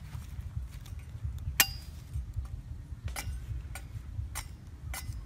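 Machete blade knocking and chopping on a thin bamboo stick as it is cut and shaped. One sharp knock with a brief metallic ring comes about a second and a half in, then a run of knocks about two a second from about three seconds in.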